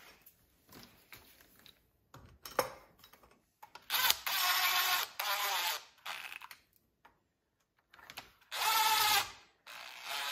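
Power drill running in several short bursts of about a second each, driving in the bolts that hold a guard on; light clicks and knocks of handling come before the first burst.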